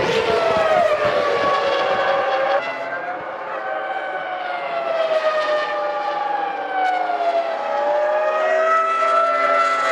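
Formula One cars' 3-litre V10 engines running at high revs, their pitch sweeping up and down as they accelerate and pass. About two and a half seconds in the sound drops abruptly to a softer, steadier engine note that slides slowly in pitch.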